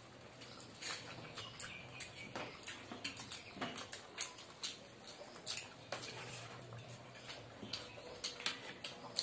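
Chewing and wet mouth smacks of people eating curry and rice by hand, with soft squelches of fingers mixing rice on plates: many irregular short clicks.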